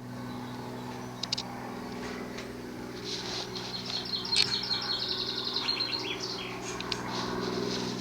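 A small songbird singing a fast trill of rapidly repeated high notes for a few seconds in the middle, over a steady low hum.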